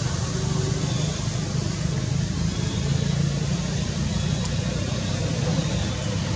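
A steady low hum of a running engine, even throughout, with a faint hiss above it.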